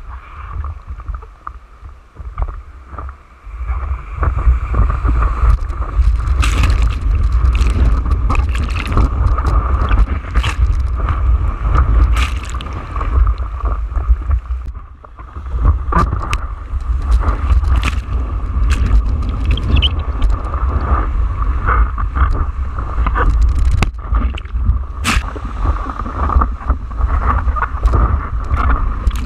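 Surf and rushing seawater heard from a camera mounted on the nose of a surfboard in breaking waves: a heavy low rumble of water and wind on the microphone, with frequent sharp splashes against the camera. It eases off briefly about halfway through.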